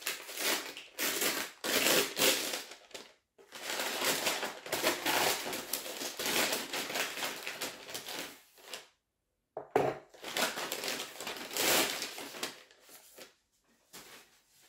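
Brown kraft-paper wrapping being handled by hand, rustling and crumpling as it is opened, in repeated bursts with a short pause about two-thirds of the way through.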